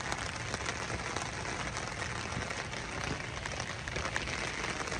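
Steady rain falling, an even hiss dotted with the small ticks of single drops.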